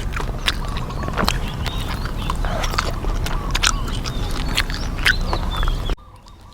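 Close-up eating noises: chewing and lip-smacking on deep-fried chicken, with many short crunchy clicks, over a steady low hum that cuts off suddenly near the end.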